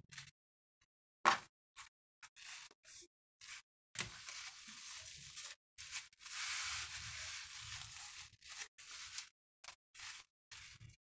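Scissors snipping cotton fabric, with a sharp click about a second in, then fabric rustling and rubbing as it is folded and pressed onto glued cardboard, in longer stretches toward the middle.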